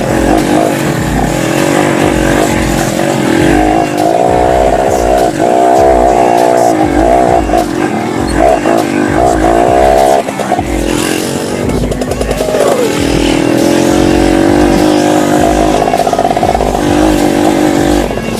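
Dirt bike engine revving under load on a slippery uphill climb, its pitch rising and dipping repeatedly as the throttle is worked.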